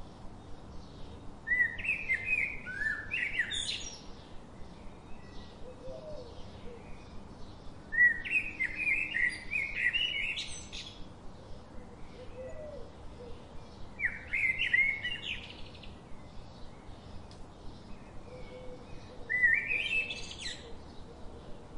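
A songbird singing four short phrases of quick notes that climb in pitch, about six seconds apart. Between them, a pen scratches faintly across paper as it writes.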